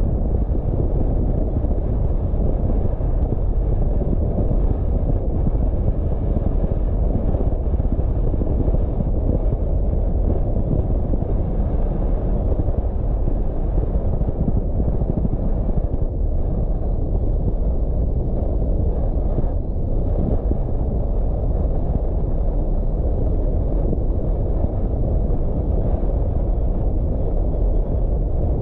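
Car driving: a steady low rumble of road and wind noise with no distinct engine note, unchanged throughout.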